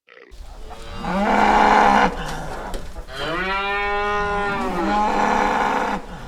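Cow mooing: two long, pitched calls, the second rising and then falling in pitch.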